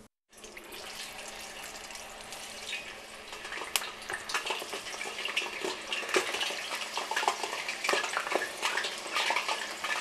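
Thin potato slices sizzling and crackling as they are deep-fried in hot vegetable oil, slid in one at a time. The frying gets louder about halfway through as more slices go in.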